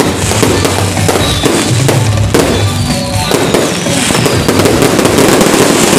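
Fireworks bursting close overhead: a rapid, continuous string of sharp bangs and crackles that grows denser and louder toward the end.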